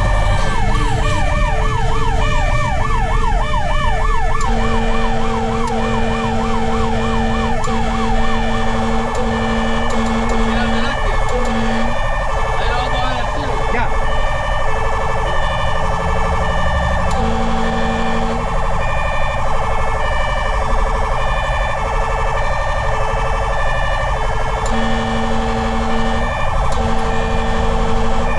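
Fire rescue truck running with its siren on: a fast rising-and-falling yelp for the first few seconds, then a slower sweep until about nine seconds in. Under it are steadily repeating pulsed tones and the engine's low rumble.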